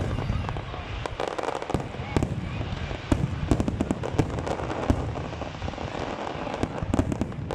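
Fireworks display going off: an irregular, rapid series of sharp bangs and crackles.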